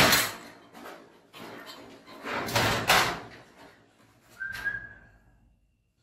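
Steel garage door sections being shifted by hand: two long scraping rattles, then a short high squeal about four and a half seconds in.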